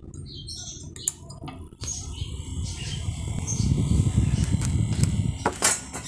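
Multilaser 15 cm mini desk fan running close to the microphone, its airflow buffeting it in a low rumble that swells in the second half, with a few sharp clicks. Small birds chirp in the background.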